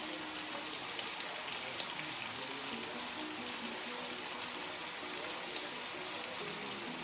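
Food frying in a pan, a steady crackling sizzle, with background music playing over it.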